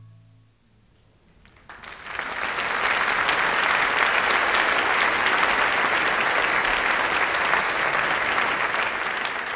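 The marimba's final low notes fade out. After a short pause an audience breaks into applause about two seconds in, swelling quickly and then clapping steadily.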